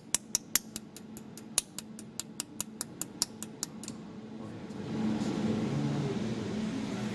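Pulsed jewelry laser welding machine firing a quick series of sharp snapping clicks, about five a second, as the laser pulses strike. The clicks stop about four seconds in, and a steady low hum grows louder near the end.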